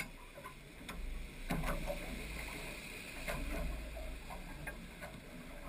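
Water lapping against an aluminium boat hull, with scattered light clicks and knocks from a fish and tackle being handled on board; the strongest knock comes about a second and a half in.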